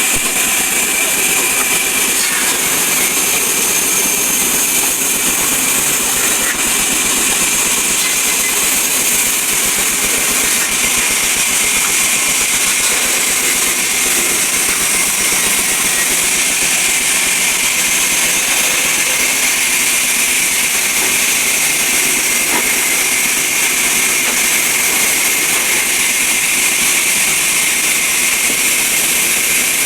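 Sawmill saw (aara machine) running and cutting timber: a loud, steady, high-pitched mechanical whir with no breaks.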